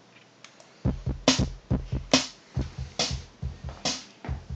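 Boss Dr. Rhythm drum machine starting a programmed beat with a bass line, sequenced over MIDI from Cubase, the bass part running through a Line 6 POD XT amp modeler. The beat comes in a little under a second in after near silence, with sharp hits a bit under a second apart over low bass notes.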